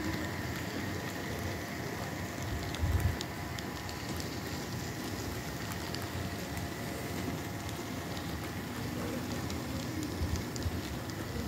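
HO scale model freight cars rolling slowly past on the track: a steady rattling rumble of small wheels with fine clicks, under a faint steady whine. A brief low thump about three seconds in.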